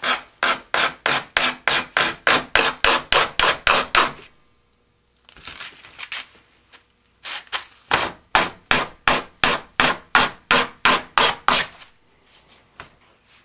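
The end of a rocket's switch-band ring is rubbed back and forth on a sanding block, about four sanding strokes a second, in two runs of some four seconds each with a short pause between. The sanding squares the ring's edge and takes off its ridge.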